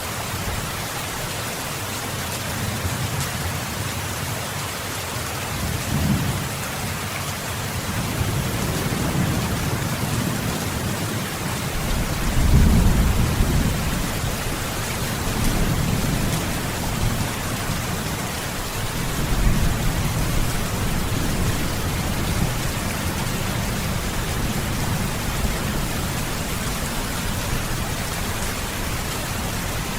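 Steady rain falling, with low thunder rumbles swelling up about six seconds in, loudest at around twelve to thirteen seconds, and again at around sixteen and twenty seconds.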